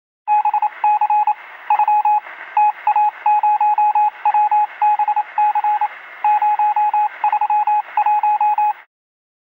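Morse code beeping over radio static: one steady pitch keyed on and off in short dots and longer dashes, heard in a narrow radio-like band. It cuts off abruptly near the end.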